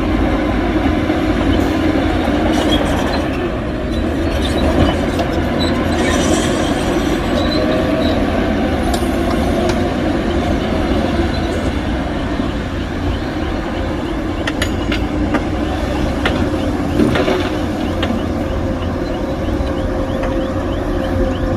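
Heavy diesel earthmoving machinery running steadily, a deep engine rumble, with a few short, sharp metallic clanks about two-thirds of the way through.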